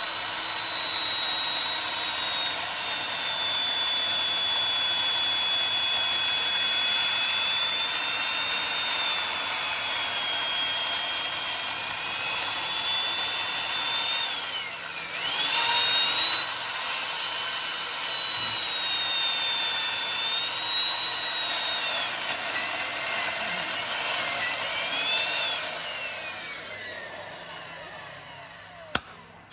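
Corded electric chainsaw running as it cuts into a large wooden block, a steady high whine whose pitch sags briefly about halfway through. Near the end the motor is let off and winds down with a falling pitch.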